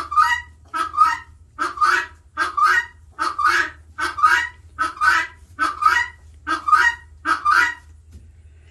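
Helmeted guineafowl calling: a harsh two-note call repeated evenly about a dozen times, stopping near the end.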